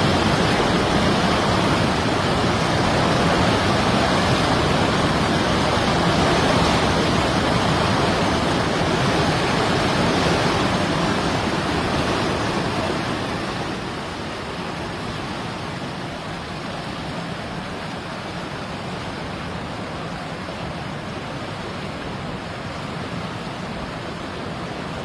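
Rushing floodwater: a loud, steady rushing noise that drops somewhat about fourteen seconds in.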